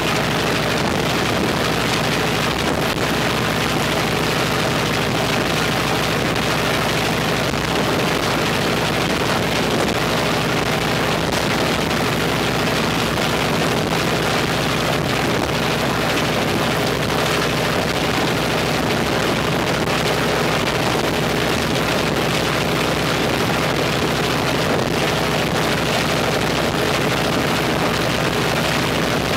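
Ilyushin Il-14T's left engine, a Shvetsov ASh-82T fourteen-cylinder radial, running steadily on a ground run.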